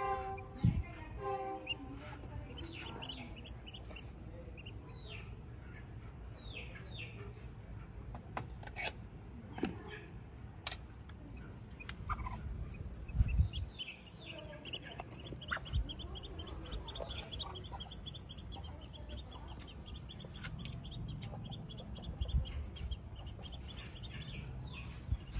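Duckling peeping: many short, high, falling peeps, coming in a quick, steady run through the middle. A few dull knocks sound among them, the loudest about halfway through.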